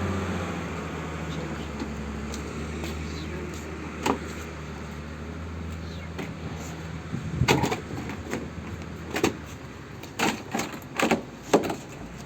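A steady low hum that fades over the first few seconds, then a scattering of sharp knocks and clanks, the busiest run near the end.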